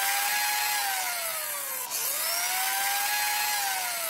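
Drilling sound effect: a whirring hiss whose pitch rises, holds and falls off twice, the second whir starting about halfway through. In the audio play it stands for holes being bored into small leaves.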